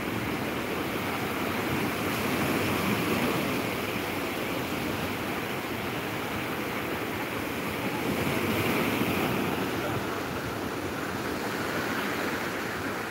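Sea surf breaking on a beach: a steady wash of waves that swells louder twice.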